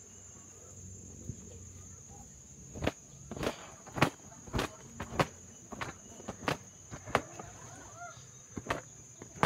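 Footsteps on rocky ground starting about three seconds in: a run of sharp, irregular steps, one or two a second, over a steady high-pitched insect buzz.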